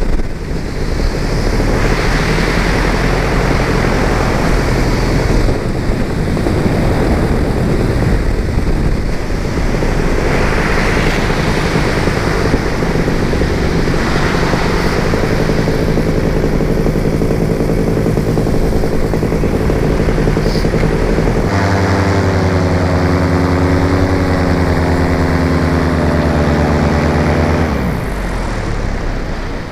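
Tornado 280 two-stroke paramotor engine running steadily in flight, propeller and wind noise mixed in. About 28 seconds in its note slides down and the loudness drops as the engine quits in mid-flight, a failure traced to the spark plug boot coming off.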